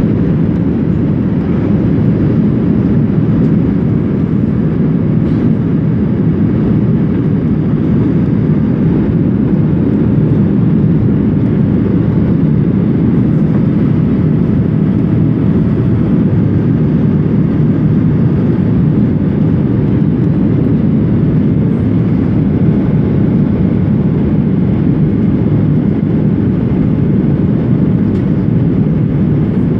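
Jet airliner cabin noise heard from a window seat: a loud, steady, low rumble of engines and airflow during the descent towards landing.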